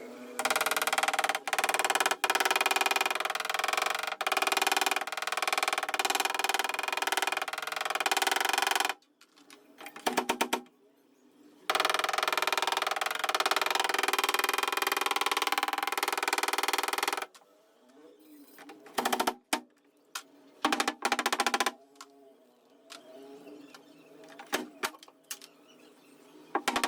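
Background music in two long stretches with a short break between, then a quieter stretch with scattered sharp taps.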